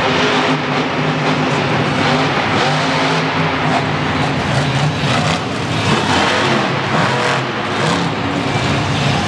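Monster truck's supercharged V8 engine running hard under heavy throttle, its pitch held high at first and then rising and falling in quick swoops in the second half.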